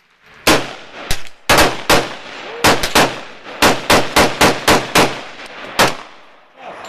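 Remington Nylon 66 .22 rimfire semi-automatic rifle firing a quick string of about fifteen sharp shots, several coming a fraction of a second apart, over about five seconds.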